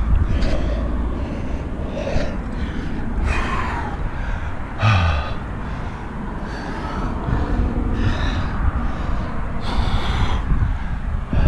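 A rock climber's heavy breathing on the route, a breath every second or two, over a low rumble of wind on the microphone.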